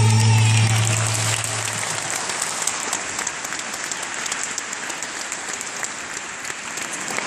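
Audience applauding as a song ends; the song's last low note dies away in the first couple of seconds under the clapping.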